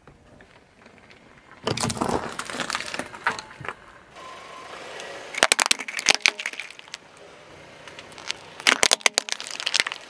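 A car tyre rolling over and crushing plastic items on asphalt: a dense crunching, crackling stretch about two seconds in, then sharp cracks of plastic breaking in a cluster around the middle and again near the end.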